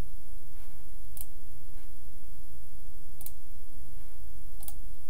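Computer mouse clicking about three times, a few short separate clicks while browsing a file dialog, over a steady low hum.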